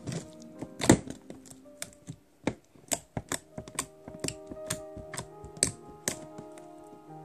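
Blue fluffy slime crackling and popping as fingers press it flat and poke into it: a string of sharp, irregular pops and clicks, two or three a second, the loudest about a second in.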